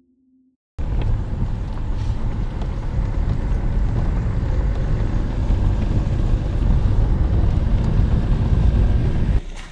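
Engine and road noise inside a moving vehicle: a loud, steady low rumble that starts abruptly about a second in and drops off sharply near the end.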